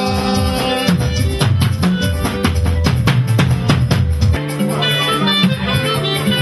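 Music with drums and percussion, with a quick run of drum strikes from about a second in to just past four seconds.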